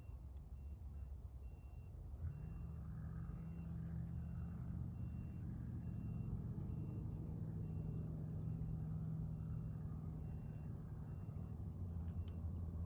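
A vehicle's reversing beeper sounding at an even pace, repeated short high beeps. From about two seconds in, an engine hum runs steadily under it.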